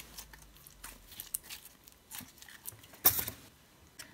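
Skifidol fluffy slime squeezed and kneaded in the hands, giving faint sticky crackles and small squelching clicks, with one louder squish about three seconds in.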